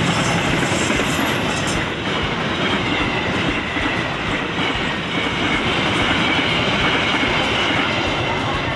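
Coaches of a KAI passenger train rolling past: a steady, loud rush of steel wheels on the rails.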